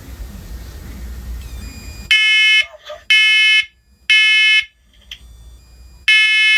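First Alert smoke alarm sounding its test alarm in the three-beep temporal pattern. The loud, high piezo beeps start about two seconds in: three half-second beeps half a second apart, a pause of about a second and a half, then the next round begins near the end.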